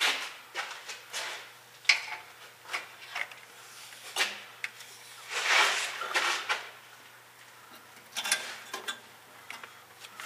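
Handling noise as the camera is secured to the truck with a bungee cord: scattered knocks, clicks and rattles, with a longer scraping rustle about halfway through.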